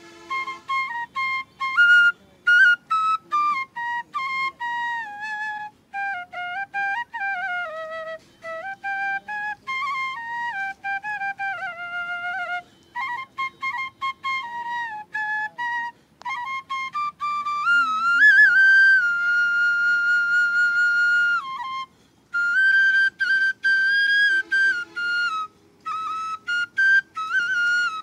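Background music: a solo flute melody in one line, with held notes joined by slides and quick ornaments, phrased with short breaks.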